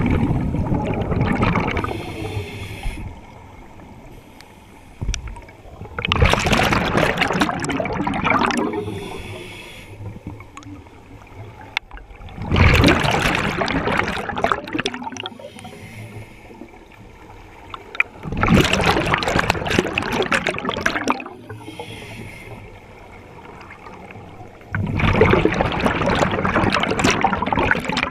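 Scuba regulator exhaust: bursts of exhaled bubbles gurgling out, about every six seconds in a steady breathing rhythm, five times, with quieter gaps between breaths.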